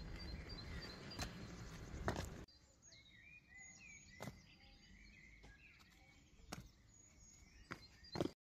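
Shoes landing on concrete steps outdoors, a few single sharp footfalls over a low outdoor hum. From about two and a half seconds in, small birds chirp in the background between the footfalls.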